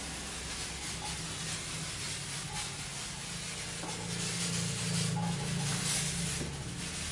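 Handheld electric fogging machine spraying a disinfectant fog: a steady hiss over a low motor hum, getting a little louder about four seconds in.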